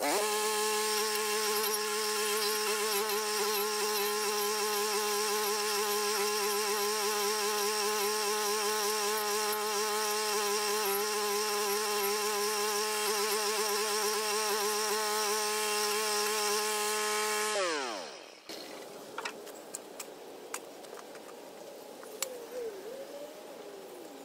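Toro walk-behind stump grinder's small gasoline engine running at full speed while its cutting wheel is swept across a stump, the pitch wavering slightly under load. About 17 seconds in it is shut off and winds down, its pitch falling, leaving a few light ticks and scrapes.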